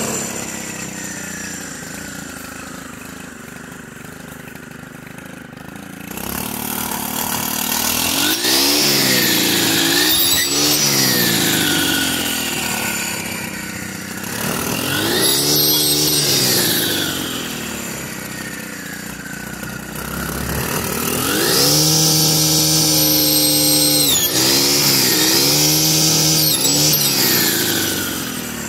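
Stihl FS131 brushcutter's small 4-MIX engine, fitted with a saw blade. It runs low for the first several seconds, then is revved up and down again and again, with the longest high-throttle bursts in the second half.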